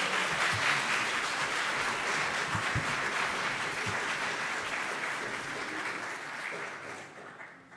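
Church congregation applauding, dense clapping that tapers off near the end.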